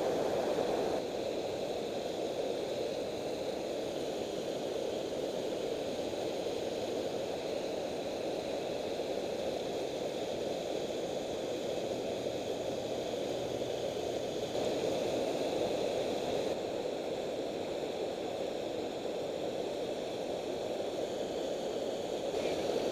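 Water pouring over a low-head dam spillway: a steady, even rush of falling water.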